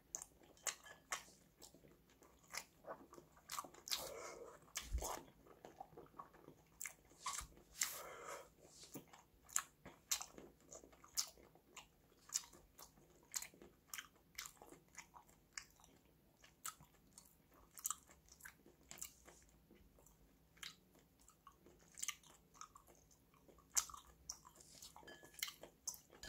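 A person chewing pieces of sundae (Korean blood sausage) close to the microphone: irregular wet mouth clicks and smacks, several in a row with short pauses between them, the sausage chewy in texture.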